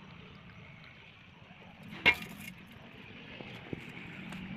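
Faint steady background hiss, with one sharp knock about two seconds in and a few faint ticks.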